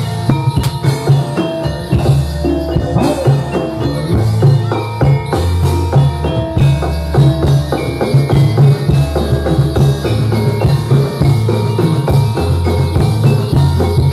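Live Javanese jaranan dance music from a gamelan ensemble: mallet-struck metallophones playing a busy, fast melody over steady drum beats and deep low notes.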